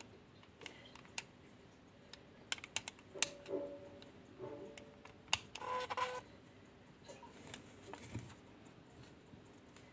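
Button and switch clicks on a camera speedlight flash, with a few short tones mixed in. About six seconds in, a faint high-pitched whine starts and holds steady as the flash powers up and charges.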